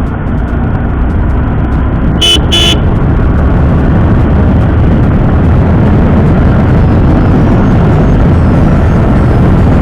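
Wind rushing over the microphone of a motorcycle picking up speed, growing louder over the first few seconds and then holding steady. A vehicle horn beeps twice briefly about two seconds in.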